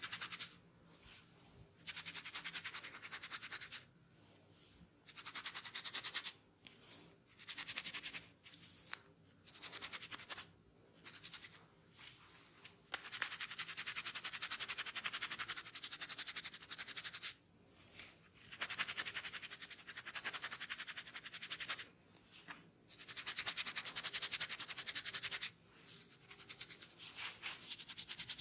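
Rapid scratching at a dry, dandruff-flaked scalp through the hair. It comes in bouts of a second or a few seconds with short pauses between, and one longer bout midway.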